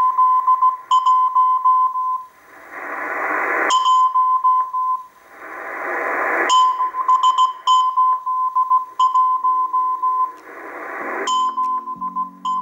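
Morse code number station received on a Tecsun PL-880 shortwave radio in LSB: a single steady-pitched beeping tone keyed in dots and dashes at about 17 words per minute, sending a repeating '781' group. Three times the keying stops and the gap fills with a swelling hiss of static, and quiet background music comes in near the end.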